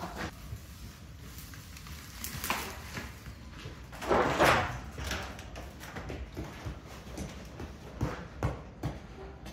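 Knocks and clatter as a tall corrugated panel is picked up and handled, with one loud rattling scrape about four seconds in, over a low, steady wind rumble.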